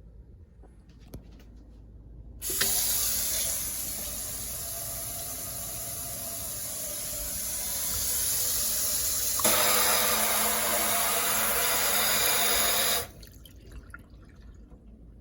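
Water running from a newly installed kitchen faucet into the sink, turned on about two and a half seconds in. About seven seconds later the flow changes and gets louder, then it is shut off suddenly near the end.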